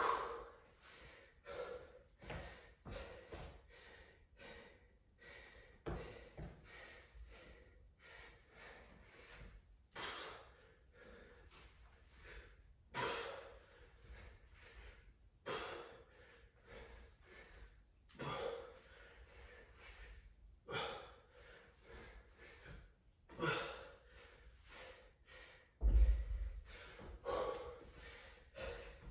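A man panting hard between dumbbell snatch reps, with six sharp exhales about two and a half seconds apart, one on each snatch. Near the end comes a heavy thud as the dumbbell is set down on the floor.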